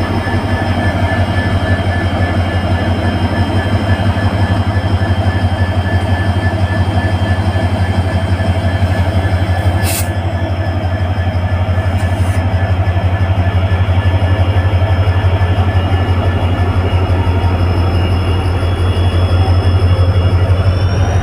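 Indian Railways passenger express pulling out of the station, its coaches rolling past with a steady, loud low rumble.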